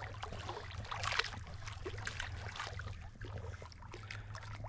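A Staffordshire bull terrier paddling through shallow lake water: small irregular splashes and sloshes, over a steady low rumble.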